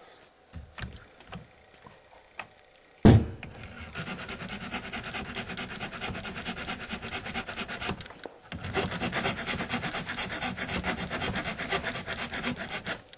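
Small DC electric motor driving a 3D-printed plastic gear train, the gear teeth meshing with a steady rasp while the motor is held against the gears by hand. It starts suddenly about three seconds in, runs for about five seconds, stops briefly, then runs again for about four seconds; a few light clicks come before it.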